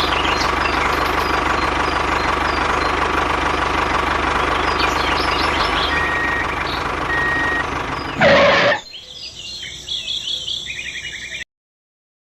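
A small motor running steadily with a steady whine, with birds chirping and two short beeps about six and seven seconds in. A loud burst of noise comes about eight seconds in. The motor sound then gives way to a quieter, different sound that cuts off abruptly.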